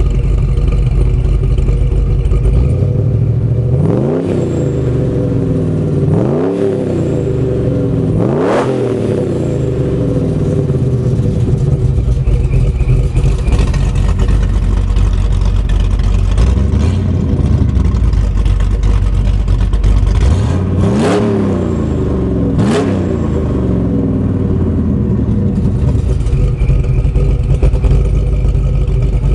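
Supercharged 410-cubic-inch stroker V8 of a 1998 Jeep Grand Cherokee, breathing through headers and a Flowmaster Series 50 muffler, idling with a heavy lope and revved in short, sharp throttle blips: three in the first nine seconds and two more just after twenty seconds.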